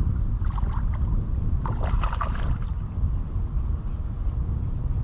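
Strong wind buffeting the microphone in a steady low rumble, with a few brief, fainter sounds about half a second and two seconds in.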